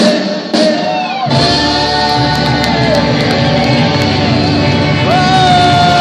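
Live rock band playing: after a thinner first second the full band with drums comes in, and a long held note sounds near the end.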